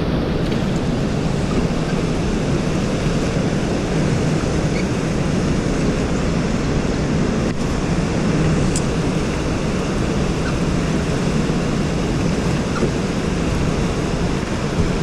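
Fast river water rushing through rapids, a steady, even noise.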